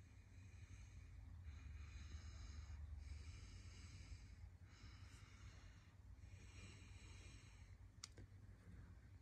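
Near silence with faint, slow breathing close to the microphone, about four breaths, and a single sharp click near the end.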